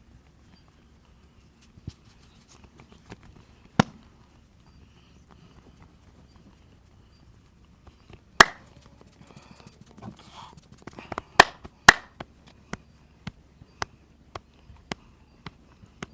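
Percussive massage strokes by hand on the head and back: a few loud, sharp strikes, the loudest about halfway through and a tight cluster a few seconds later, then a steady run of lighter strikes about twice a second near the end.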